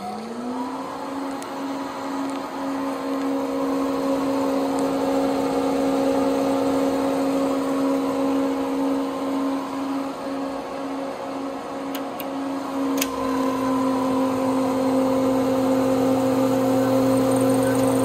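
DEC RA81 hard disk drive finishing its spin-up: the belt-driven spindle motor's rising whine levels off within the first second, then runs at speed with a steady whine. About two-thirds of the way through a click is heard and a low hum joins in.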